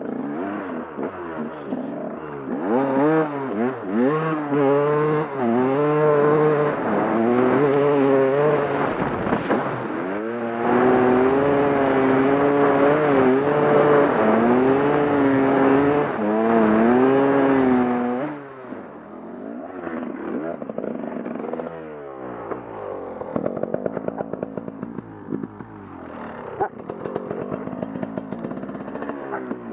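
Two-stroke enduro motorcycle being ridden hard, its engine pitch climbing and dropping over and over as it accelerates and shifts. About two-thirds of the way through it drops to a quieter, lower run.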